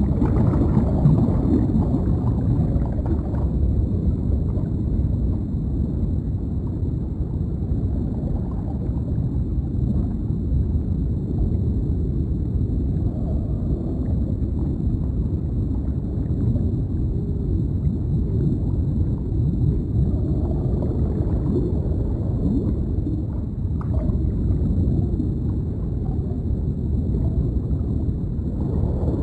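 Deep underwater ambience: a steady low rumble with soft bubbling gurgles.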